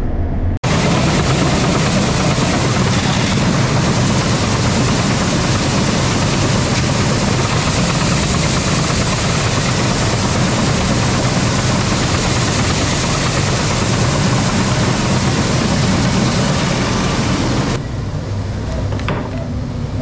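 Shelled corn pouring from a grain truck into the hopper of a running grain conveyor: a loud, steady rushing of kernels over a low machine hum. It starts suddenly about half a second in and drops away to a quieter sound near the end.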